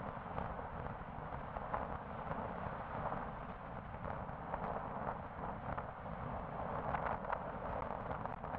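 Wind buffeting the microphone over road rumble from a vehicle moving along a multi-lane road, with small irregular knocks and bumps.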